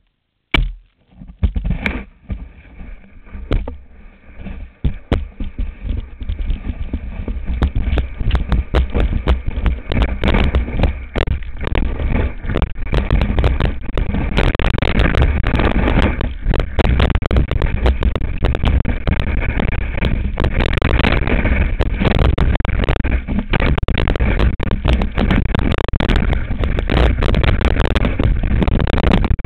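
Skis scraping and chattering over packed snow with wind rushing across the microphone as the skier picks up speed downhill. A few knocks about a second in, then a rough rush that grows louder over the first several seconds and stays loud.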